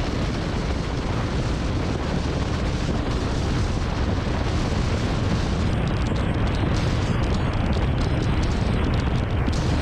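Wind buffeting a helmet-mounted camera's microphone while riding a motorbike: a steady, loud rushing noise heaviest at the low end.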